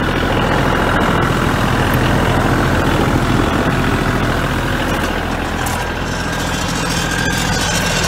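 Kioti compact tractor's diesel engine idling steadily.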